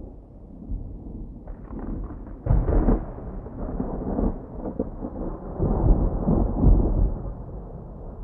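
Thunder rolling in a thunderstorm: a low, muffled rumble that breaks into a sharp crack about two and a half seconds in, then rolls on in heavy rumbling peaks through the second half.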